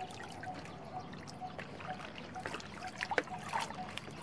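Water splashing and trickling as cos lettuce leaves are swished and lifted by hand in a tub of water, with many small irregular splashes and one louder splash about three seconds in.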